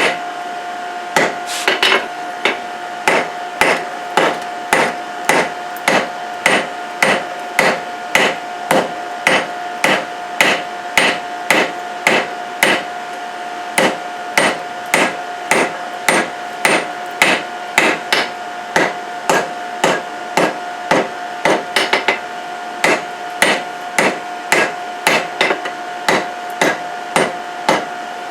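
Hand hammer striking a hot Damascus steel billet on an anvil, about two blows a second, each with a short metallic ring, as the billet is drawn out. A steady tone runs underneath.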